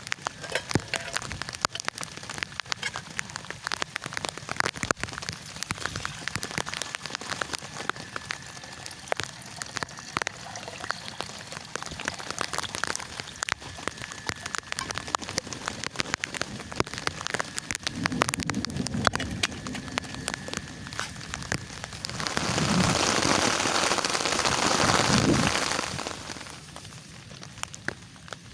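Heavy rain falling, with a dense patter of individual drops striking a surface over a steady hiss. About three-quarters of the way through, a louder, even rush swells for roughly three seconds, then falls back.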